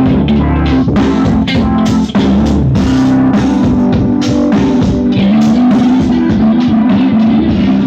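Music with a steady beat played loud through a dual-channel 5200 amplifier into 40 W woofers, one of them sitting in a bucket in place of a cabinet: an amplifier sound test.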